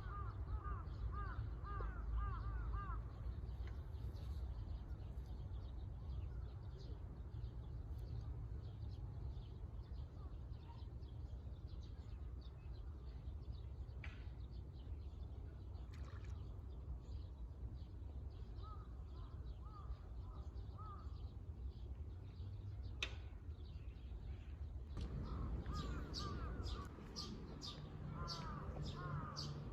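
Crows cawing in bouts of repeated calls, with small birds chirping quickly toward the end, over a steady low outdoor rumble.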